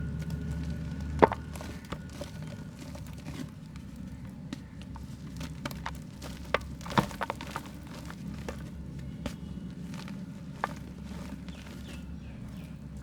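Lumps of soft dried mud crumbling and snapping in the hands: scattered crisp cracks and crunches, the sharpest about a second in and another cluster around seven seconds, over a steady low hum.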